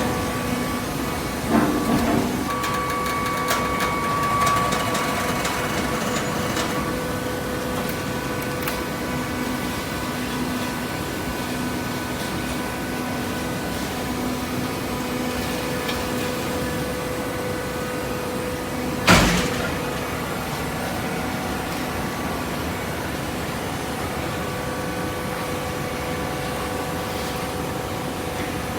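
Horizontal hydraulic paper baling press running: a steady machine hum with a few knocks near the start and a single loud bang about nineteen seconds in.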